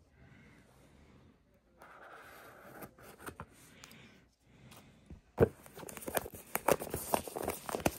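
Cellophane shrink wrap on a smartwatch box being cut open and torn off, rustling and crinkling. From about five and a half seconds in it turns into dense, louder crackling.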